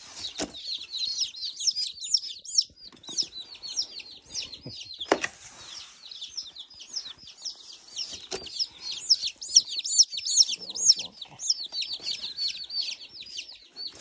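A box of baby chicks peeping continuously: many rapid, high-pitched peeps overlapping. A few knocks come through, near the start, about five seconds in and about eight seconds in.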